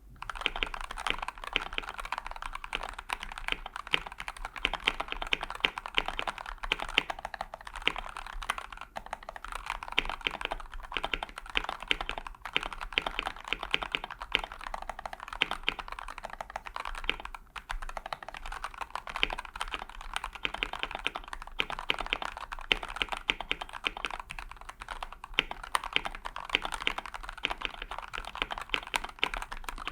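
Fast, continuous typing on a Vortex M0110 gasket-mount mechanical keyboard: a dense run of key clicks, with a brief pause a little past halfway.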